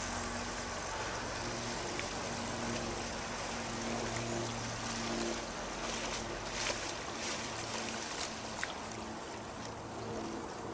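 Small boat's motor running steadily at a distance, a low, even drone under a hiss of water and wind.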